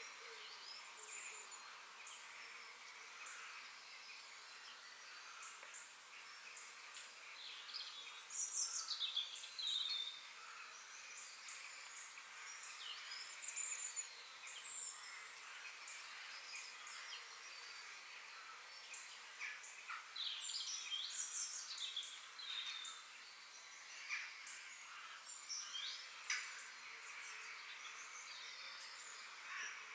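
Several small birds chirping and singing over a steady high hiss of forest ambience, with louder bursts of calls about eight seconds in and again around twenty seconds.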